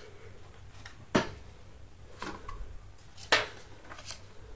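Small plastic fidget cube being tried out in the hand: a few sharp clicks and taps, two louder ones about two seconds apart and some fainter ones between them.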